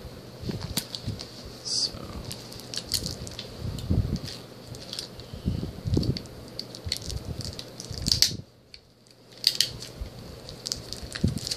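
Irregular crinkling and crackling of plastic wrap being handled and torn, with scattered sharp clicks, pausing briefly about three quarters of the way through.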